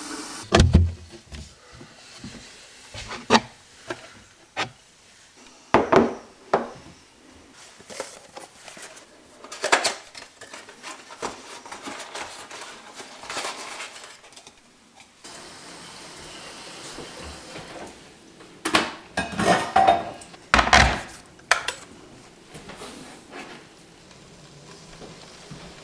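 Ceramic mugs and a kettle being handled and set down on a kitchen counter and wooden cutting board: scattered knocks and clinks, with a cluster of louder ones about three quarters of the way through.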